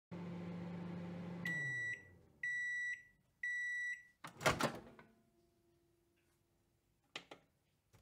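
Microwave oven running with a steady hum that winds down, then three beeps about a second apart signalling the cooking is done. About four and a half seconds in comes a loud clunk as the door is opened, and two short clicks follow near the end.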